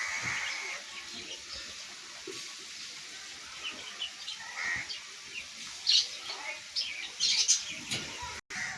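Caged pet birds chirping: a scattered string of short, high chirps, the loudest a little past the middle and near the end.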